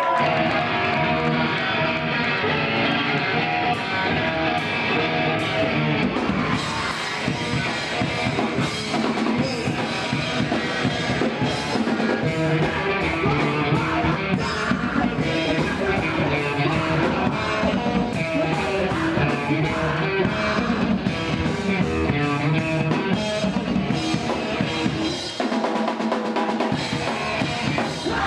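Rock band playing live: drum kit and electric guitar, with the cymbals and drums growing busier about six seconds in.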